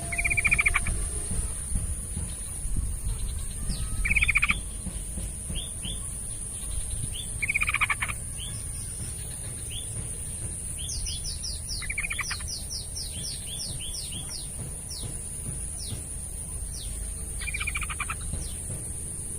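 Yellow-vented bulbul (trucukan) calling: five short bubbly chattering bursts a few seconds apart, with a quick run of thin, high, falling notes in the middle.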